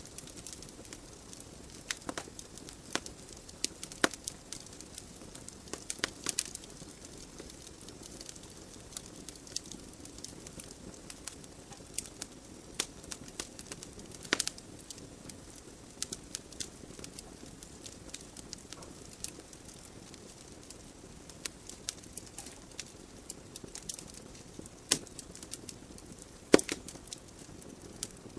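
Wood fire burning in a fireplace: a soft steady hiss of flames with irregular sharp pops and crackles from the logs, one louder pop near the end.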